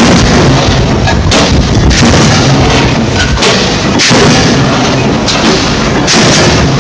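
Amada DCT3065 shearing machine running loudly, with heavy sudden strokes at uneven intervals of about one to two seconds as the blade comes down.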